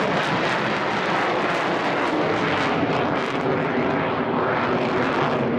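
Eurofighter Typhoon's twin EJ200 turbofans in afterburner as the jet climbs away. The noise is loud and steady, with a fine crackle, and cuts off suddenly at the end.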